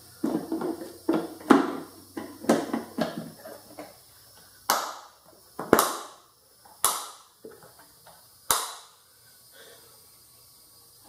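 Plastic air filter box lid on a Honda Recon 250 ATV being pressed and worked into place, a run of short knocks and rattles, then four sharp metallic snaps, about a second apart, as its spring clips latch shut.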